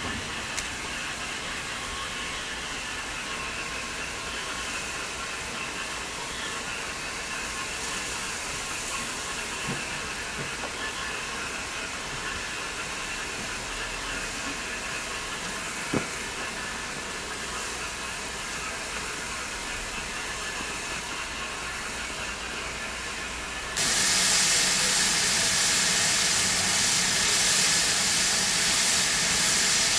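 Steam locomotive hissing steadily as steam escapes from a Great Western tank engine, with a single sharp click about halfway. About six seconds from the end a much louder, sharper steam hiss starts suddenly, from GWR Manor 4-6-0 7812 Erlestoke Manor.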